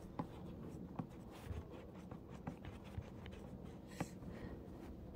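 Faint scratchy clicks and ticks of a screwdriver turning a small screw out of a graphics card, with a sharper click about four seconds in.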